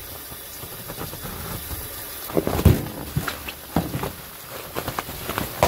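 Cardboard box being cut open with a knife and its bubble wrap handled: irregular scraping, tearing and crinkling, loudest about two and a half seconds in. Under it runs a steady low background noise.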